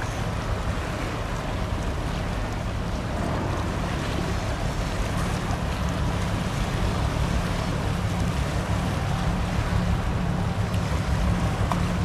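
290-ton tugboat running at speed, a steady low rumble with the wash of its bow wave, growing a little louder toward the end as it draws nearer.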